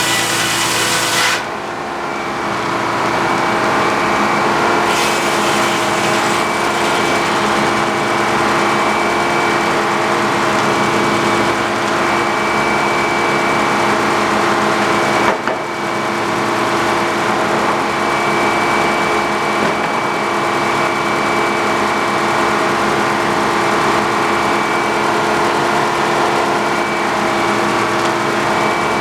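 Sawmill running: a steady engine sound with constant tones over a harsh sawing noise. About a second in, the harsh high part stops suddenly and the level dips before building back. A single short knock comes about halfway through.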